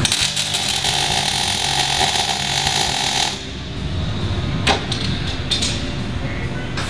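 MIG welder arc crackling as a steel doubler plate is plug welded to the car's underbody: one steady run of about three seconds that then stops, followed by a click and a few shorter bursts.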